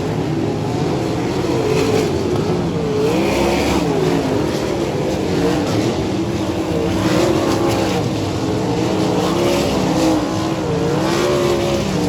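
Sprint car engines revving up and lifting off again and again, the pitch rising and falling as the cars run laps on a dirt oval.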